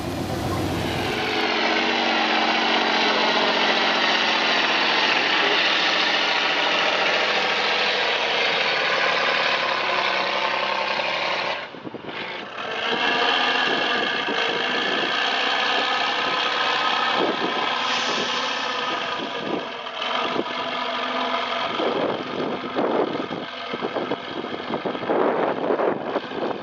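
Heavy off-road trial trucks' diesel engines running hard under load as they crawl through mud and up a steep rutted slope, with the sound cut short twice. Near the end, irregular knocks and clatter come through over the engine.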